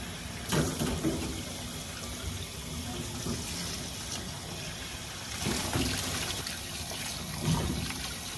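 Tap water running steadily into a sink, with a few brief knocks of a pot or strainer: freshly boiled somen noodles being rinsed and chilled under the tap.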